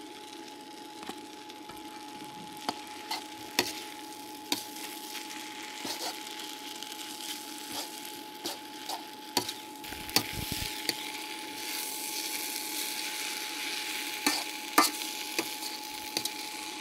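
Noodles and pork stir-frying in a pan, sizzling, with a spatula scraping and knocking against the pan about once a second over a steady faint hum. The sizzle grows louder about two thirds of the way through.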